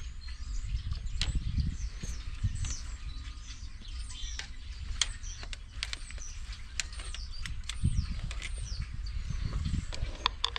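Hand tools clicking and rattling on metal engine parts, with scattered sharp clicks over a low rumble.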